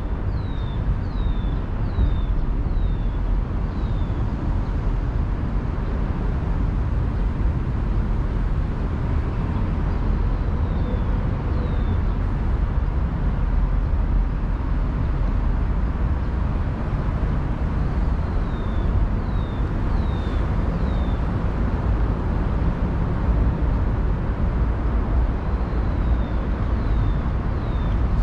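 Steady low rumble of distant city traffic, with a bird giving short runs of quick, high, falling calls every several seconds.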